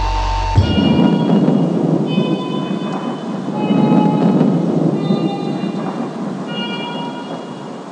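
The music's deep bass drone cuts off under a second in, leaving a recorded rain-and-thunder ambience: an even rushing noise with slow rolling swells. Faint high steady tones come and go over it.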